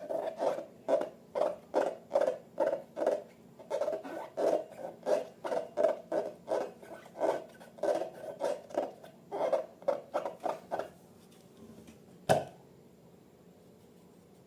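Slime being squished and kneaded by hand: a quick, regular series of wet squishes, about two to three a second, that stops about eleven seconds in, followed by a single sharp click.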